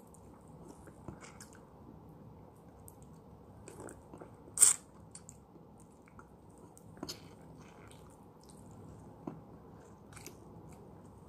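A person biting and chewing a peeled lemon close to the microphone: scattered short wet mouth clicks and smacks, the loudest a sharp one about halfway through.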